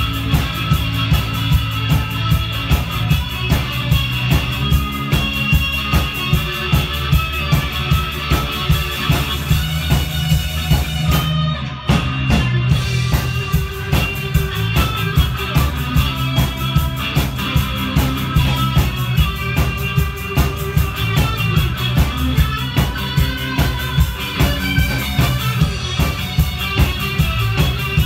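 Live rock band playing loud through the venue PA: drum kit and amplified guitar with a steady beat. About halfway through, the cymbals drop out for a moment before the full band comes back in.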